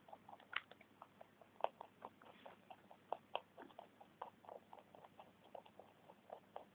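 Two pet rabbits munching broccoli from a bowl: rapid, uneven crunching, several bites a second.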